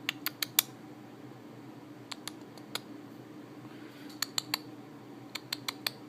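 A person making quick clicking sounds to get a cat's attention, in short runs of three or four sharp clicks every second or two.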